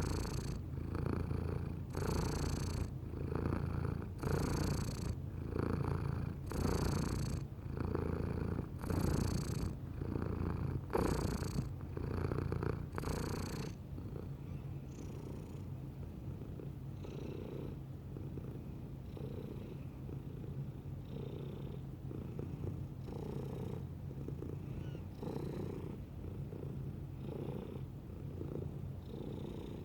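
Domestic cat purring close up, a continuous low rumble that swells with each breath about once a second. The purr is louder for the first half and turns softer about halfway through.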